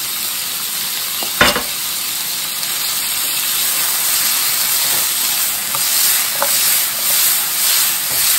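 Scallops, king oyster mushrooms and peppers sizzling loudly in a frying pan over high heat as they are stirred with a wooden spatula. There is a single sharp knock about a second and a half in. Near the end the sizzle swells in waves as the pan is shaken.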